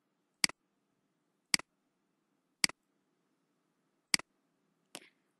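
Computer mouse button clicked five times, roughly a second apart. Each click is a sharp tick followed at once by a fainter one as the button is pressed and released, and the last click is softer.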